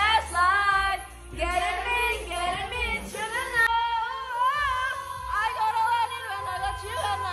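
A group of women singing along loudly to recorded pop music, with the music's steady low bass underneath.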